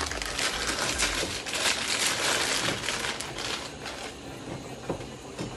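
Plastic bag of frozen spinach crinkling and rustling as it is squeezed and shaken out over a pot, dying down about three and a half seconds in.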